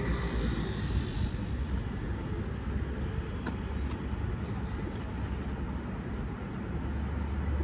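Outdoor city ambience dominated by a steady low rumble, with a couple of faint clicks about three and a half and four seconds in.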